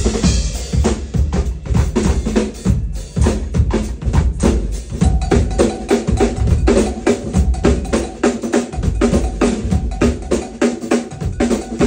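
Acoustic drum kit played fast and hard in a drum-shed style: rapid snare and tom fills over kick drum, with cymbal hits, in a dense unbroken stream of strokes.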